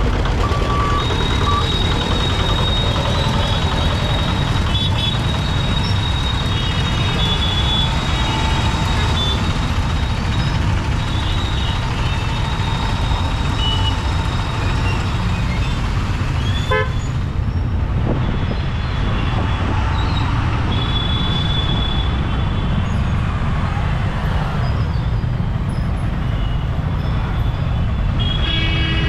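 Busy road traffic crossing the tracks: motorcycle and truck engines running in a steady rumble, with vehicle horns tooting on and off throughout.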